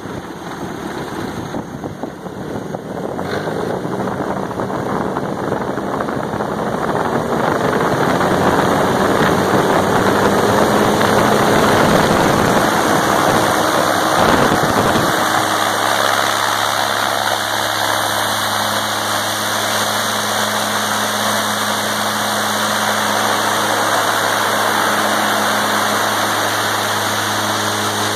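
Turbocharged Honda R18 1.8-litre inline-four engine turning a propeller through a reduction gearbox, revving up and building in loudness over the first ten seconds or so. About halfway through it changes abruptly to a steadier, even run.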